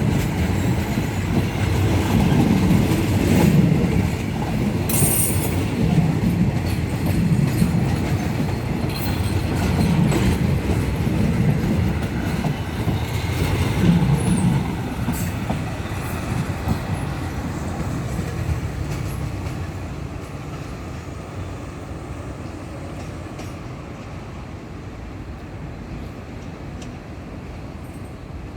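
A departing passenger train rolling past, its wheels clattering in a regular beat over the rail joints with a little wheel squeal. The train gradually fades into the distance over the second half.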